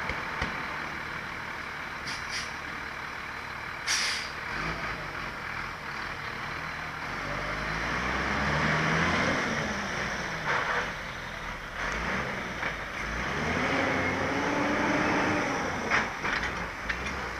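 Municipal sanitation truck running at night. Its engine revs up and falls back twice, with a short air-brake hiss about four seconds in and several metallic knocks.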